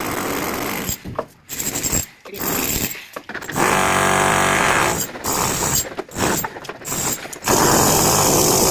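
A tool or machine running in repeated short bursts, stopping and starting several times, with one longer, steadier run in the middle.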